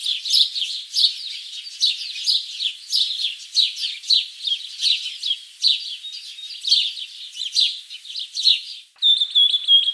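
Birds chirping: a dense run of short, quick downward chirps, several a second. About nine seconds in it breaks off and gives way to a rapid, even trill.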